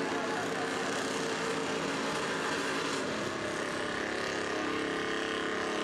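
Two monster truck engines running hard under load as the trucks pull against each other in a tug-of-war, with tires spinning. A steady, dense engine noise.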